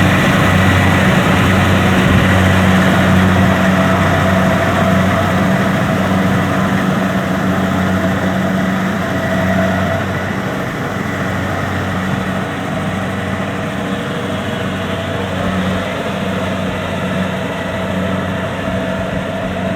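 Kubota DC-70 combine harvester's diesel engine running steadily while harvesting rice, a deep even hum with machinery noise over it, a little quieter from about halfway.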